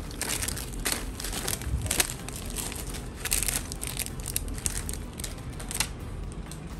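Plastic crinkling as it is handled, a run of short irregular crackles that dies away near the end.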